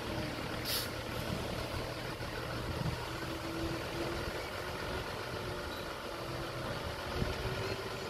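Heavy diesel engine of earthmoving machinery running steadily, with a short hiss just under a second in.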